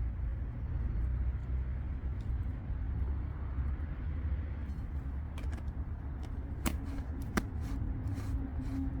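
Campfire crackling, with scattered snaps and two sharper pops in the second half, over a steady low rumble.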